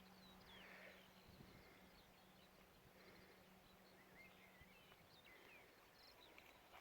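Near silence: very faint outdoor ambience with scattered faint bird chirps.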